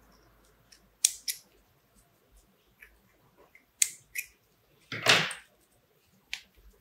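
Small spring-loaded thread snips clicking as they snip the thread: two pairs of sharp clicks, about one second and about four seconds in, and another single click near the end. A short, louder scuff a little after five seconds is the loudest sound.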